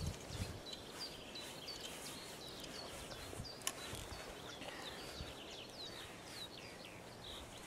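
Small songbirds chirping in the background: short high calls about twice a second, turning into quicker falling notes later on. One sharp click comes a little over three and a half seconds in.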